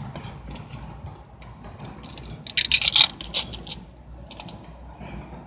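Fast-food packaging being handled, with a short burst of crackling and clicking about two and a half seconds in, over a faint steady low hum.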